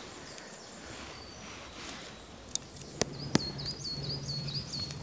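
Small wood fire of split kindling and feather sticks burning, with three sharp snaps close together around the middle. A bird sings a quick run of repeated high notes near the end.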